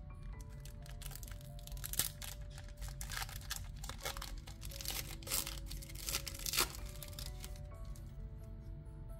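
Foil Pokémon booster pack wrapper crinkling and tearing open in a run of crackles from about a second in until about seven seconds in, over background music of slow held notes.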